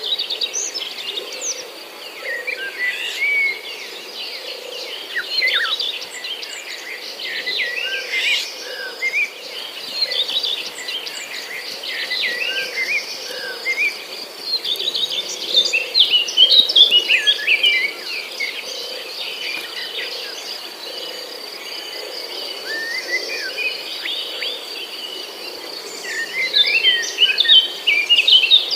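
Many birds chirping and calling in quick, darting notes over a steady high-pitched insect drone, with busier flurries of chirps at two points.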